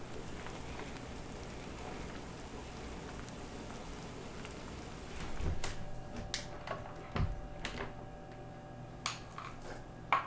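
A pot of miso soup simmering with a soft, steady hiss. About halfway through it gives way to a run of clicks and knocks as a rice cooker's lid is opened and rice is scooped out with a plastic paddle. The sharpest click comes near the end.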